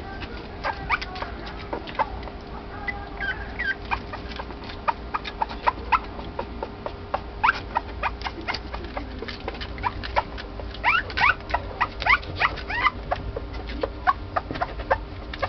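Corgi puppy whimpering and squealing while it drinks milk: many short, high-pitched squeaks, several falling in pitch, coming thicker from about halfway through.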